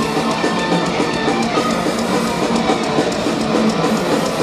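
Thrash metal band playing live: distorted electric guitars over a drum kit, a loud, dense wall of sound recorded from within the crowd.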